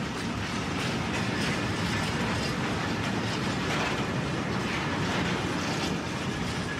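A rail vehicle running along the track: a steady rumble with a faint, repeated clatter of wheels on rails.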